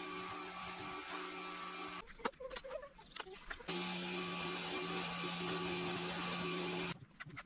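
Pressure washer running, a steady motor whine under the hiss of the spray. It stops about two seconds in, starts again under two seconds later, and stops once more near the end.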